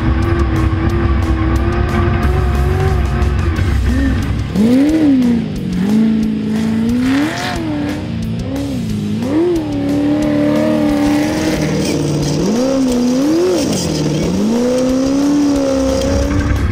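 Background music with heavy bass for the first few seconds. Then a single-seat Class 1 desert race car's engine takes over, its pitch rising and falling over and over as the throttle is worked and let off.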